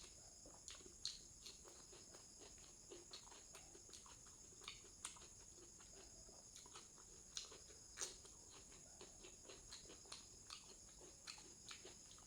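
Eating sounds: irregular soft clicks and smacks of chewing and eating with the hands, the loudest about a second in and near the middle. Behind them, steady high-pitched insect chirring, like crickets.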